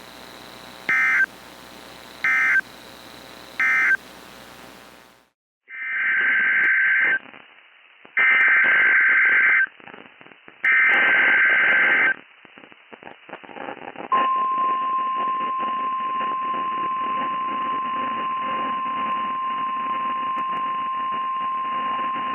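NOAA Weather Radio Emergency Alert System signalling. First come three short digital data bursts, which end the previous message. After a brief gap there are three longer, identical SAME header bursts of warbling data tones. From about 14 s in, the steady single-pitch 1050 Hz weather radio warning alarm tone holds for about nine seconds, announcing a new warning.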